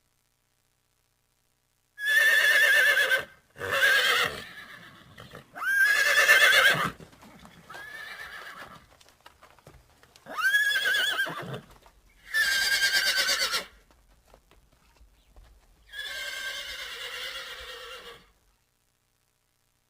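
Horse whinnying: about seven separate neighs, each one to two seconds long with a high, quavering pitch, several of them loud and a few softer.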